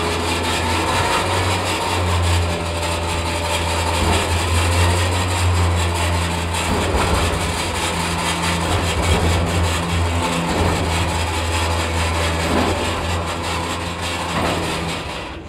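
Diesel engine of a Hino 195 truck running steadily while the Switch-N-Go hydraulic winch lets cable out to lower a steel roll-off dumpster body: a steady low hum with a higher whine over it. The sound drops away about a second before the end.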